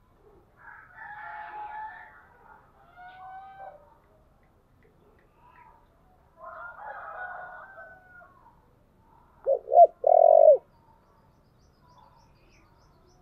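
Spotted dove cooing: its three-note call, two short notes and a longer one, about ten seconds in, the loudest sound here. Before it come softer, higher bird calls in a few patches.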